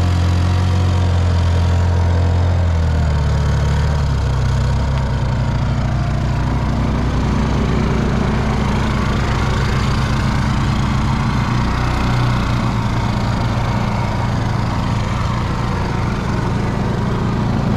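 Honda EU2200i and EU3200i inverter generators running together in parallel, loaded by halogen work lights. Their engine note shifts about three seconds in, then runs steadily.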